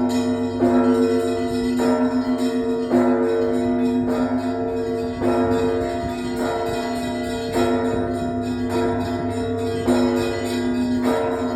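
Russian Orthodox monastery bells rung together in a peal from the main bell tower. Mid-sized bells are struck about once a second, with quicker strokes of small bells between them, and the tones ring on over a low hum from a large bell.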